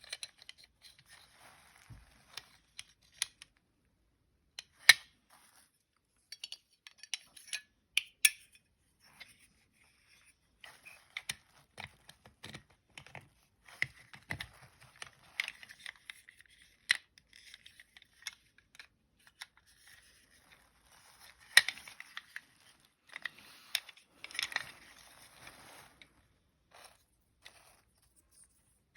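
Irregular small clicks, taps and brief scrapes of hard toy parts and small tools being handled, with a couple of sharper knocks along the way.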